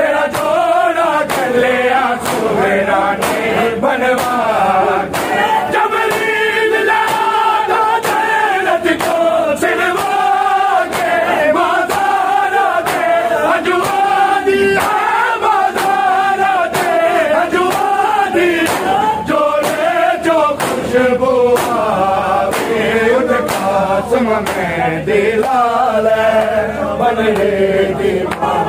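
Male voices chanting a noha, a Shia mourning lament, in a melodic unison chant. A steady beat of sharp slaps keeps time under it throughout: the mourners' chest-beating (matam).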